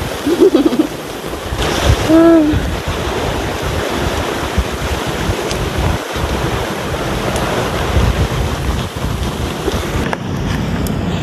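Wind gusting across the microphone over the steady wash of sea surf, with two short pitched sounds in the first two seconds or so.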